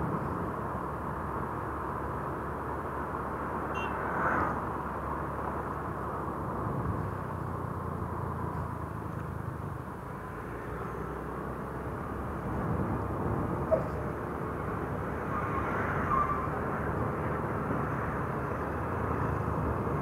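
Small Yamaha motor scooter running at a steady riding speed, engine and road noise droning evenly, with a couple of brief swells along the way.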